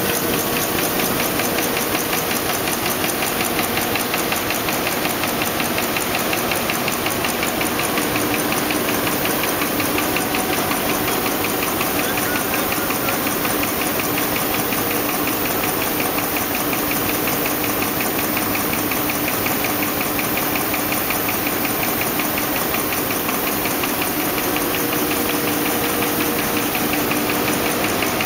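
Roll-fed envelope folding and gluing machine running at production speed: a steady, fast, even mechanical clatter.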